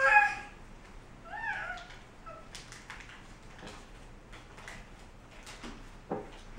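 Baby's short, loud, high-pitched squeal at the start, then a rising-and-falling coo about a second later, with a few light knocks as a plastic colander is handled on the floor.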